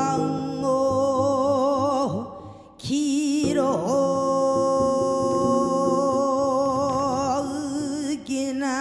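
A woman singing Korean traditional song in long held notes with a wide, wavering vibrato, over a sparse double bass. After a short break about two seconds in, she holds one long note for about five seconds, its pitch wavering at the start and end.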